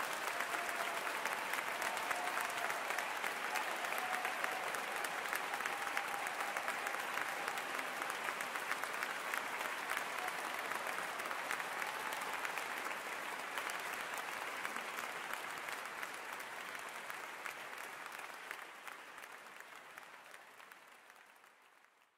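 Audience applauding steadily, fading away over the last few seconds.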